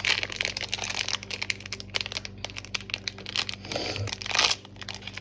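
Crinkly plastic blind-bag wrapper being handled and opened, a dense run of rapid crackles and rustles, with a louder rustle about four seconds in.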